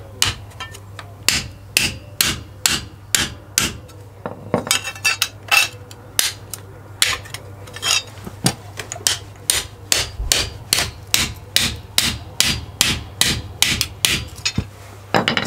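Claw hammer striking a bent steel Flymo lawnmower blade laid on a concrete floor, a long run of sharp blows about two a second, with a brief pause about four seconds in, to straighten the blade.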